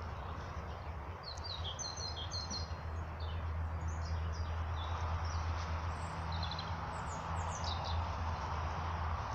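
Small birds chirping: runs of short, high calls in the first half and again around seven seconds in, over a steady rushing background noise with a low rumble.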